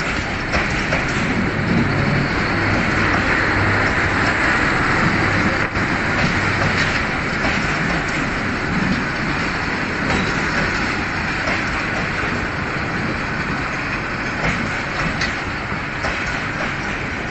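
Passenger coaches of an arriving express train rolling past along the platform: a steady, loud rumble and rattle of steel wheels on the rails, easing slightly toward the end.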